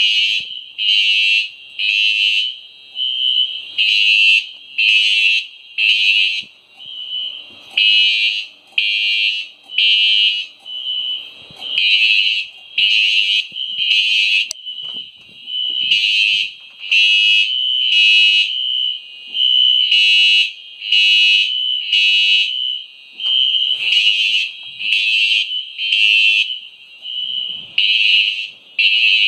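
Fire alarm devices sounding loudly in the temporal-three evacuation pattern: three high-pitched pulses about a second apart, then a pause, repeating every four seconds. A steady high tone carries on underneath.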